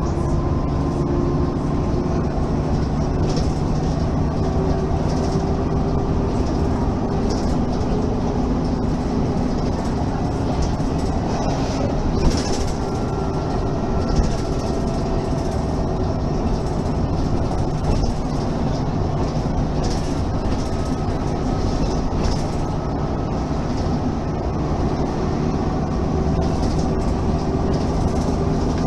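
Mercedes-Benz Citaro Facelift city bus under way: a steady engine and transmission drone with tones that slowly shift in pitch, and a few short knocks and rattles, the sharpest about twelve seconds in.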